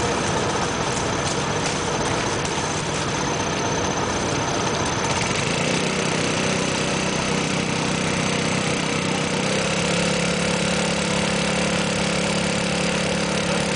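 Small petrol engine running steadily. About five seconds in its note settles into a steadier hum, and it steps up slightly in pitch near ten seconds.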